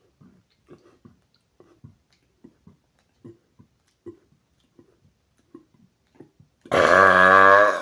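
A man's single loud, long burp, about a second long, low-pitched and wavering, brought up near the end after a carbonated Sparkling Ice drink. Before it come soft, short sounds about every half second.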